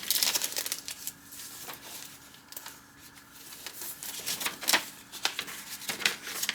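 Pages of a handmade junk journal stuffed with vintage paper ephemera being turned and handled: papery rustles and flicks, busiest at the start and again in the second half, quieter in between.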